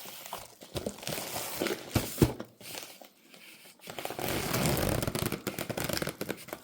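Packaging being handled: a run of light clicks and knocks, then about four seconds in a dense crinkling of wrapping.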